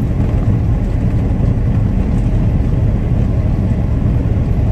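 Steady low rumble of a vehicle's engine and tires on the road, heard from inside its cab while driving.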